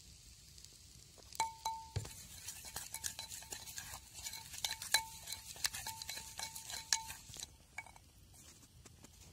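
Wooden spoon stirring sunflower oil and ground spices in a clay pot, tapping and scraping against the pot's sides. Many strokes set off a brief ringing tone from the pot. The stirring starts about a second in and stops near the end.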